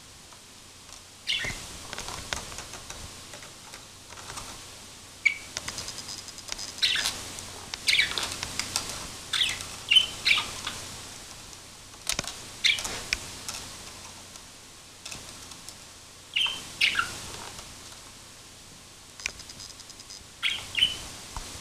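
Budgerigar chirping in short scattered calls, many sliding downward, with sharp clicks from its beak pecking at a laptop's plastic.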